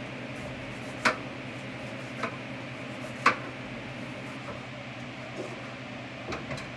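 A kitchen knife striking a cutting board while cutting a head of lettuce: three sharp taps about a second apart, then a few fainter ones near the end, over a steady background hum.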